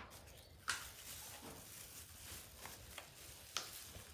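A few light, scattered clinks and knocks of dishes and serving spoons being handled, about six short taps over four seconds against a faint room hum.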